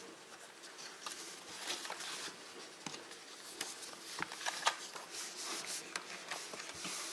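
Photo prints being handled and shuffled, a light paper rustle with scattered small clicks and taps as they are put up on a wire grid memo board.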